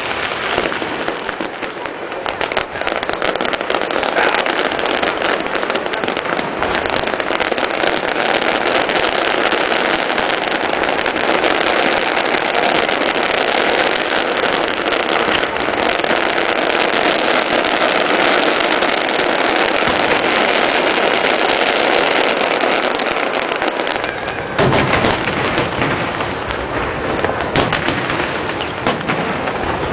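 Aerial fireworks display: a dense, continuous run of crackling and popping shell bursts. Heavier booms come in about three-quarters of the way through.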